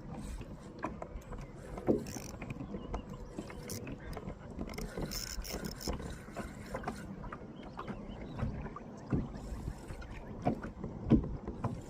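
Spinning fishing reel being cranked to retrieve the line, its gears clicking irregularly, with occasional knocks against the kayak's hull.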